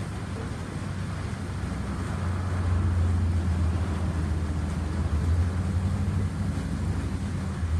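Water surging up out of a flooded manhole: a steady rushing with a deep low rumble that grows louder about two seconds in.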